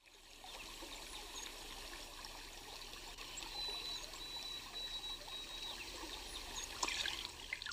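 A stream's water trickling and running steadily, with a few faint high chirps over it.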